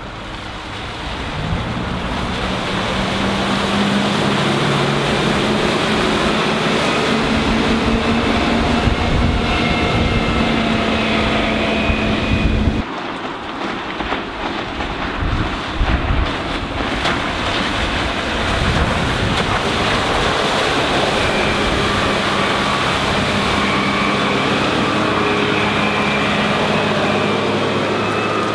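Motorboat engine running on the water under wind noise on the microphone and the wash of waves. The engine note breaks off abruptly about 13 seconds in and comes back steady later on.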